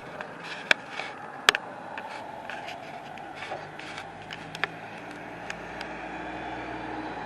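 Steady street traffic noise with a faint engine hum, broken by scattered sharp knocks and clanks, the loudest two within the first two seconds.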